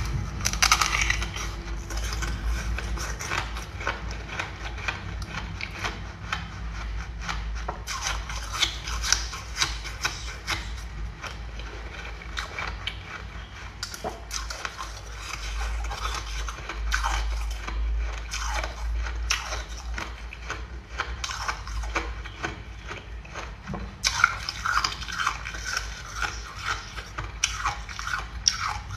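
Ice being bitten and chewed: many quick, crisp crunching cracks, coming in denser runs with sparser stretches between, over a low steady hum.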